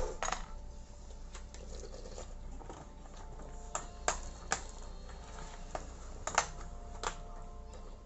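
Scattered light clicks and taps of eating and handling tableware: a metal spoon in a soup bowl and clear plastic takeout boxes being picked up and handled, over a faint steady hum.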